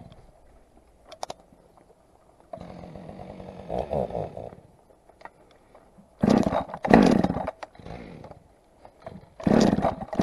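Husqvarna 572 XPG two-stroke chainsaw idling and being revved in several short throttle blips, each rising and falling in pitch, the loudest around six to seven seconds in.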